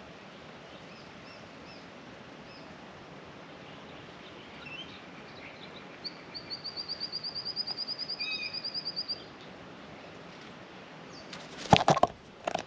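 A bird sings a rapid, high trill of about seven notes a second for some three seconds, after a few faint chirps. Near the end come a few loud, sharp knocks.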